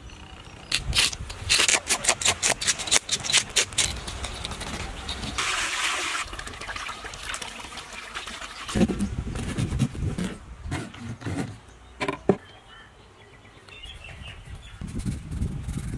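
Water splashing and sloshing in a basin as a whole fish is washed by hand, with a quick run of sharp clicks and knocks in the first few seconds and a short rush of water near the middle.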